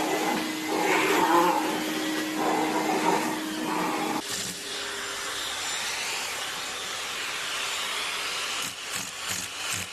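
Vacuum cleaners running. First an upright vacuum's steady hum, with some louder pitched sounds over it. About four seconds in it changes suddenly to the even suction hiss of a vacuum hose, with a few short clicks near the end.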